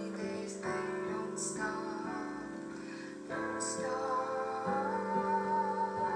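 A gentle song: a woman singing over soft instrumental accompaniment. She holds one long note through the second half.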